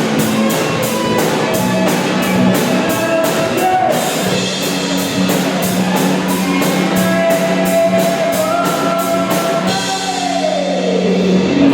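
Rock band playing in rehearsal: electric guitar over a drum kit, with a steady cymbal beat for the first few seconds, then held notes and a long downward pitch slide near the end.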